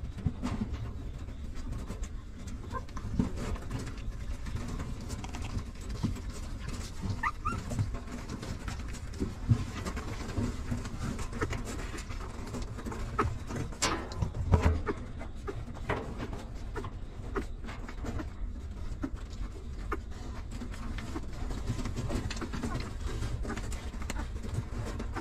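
Newborn puppies nursing from their mother, with small suckling clicks and shuffling throughout and a couple of brief high squeaks. There is a dull bump about halfway through.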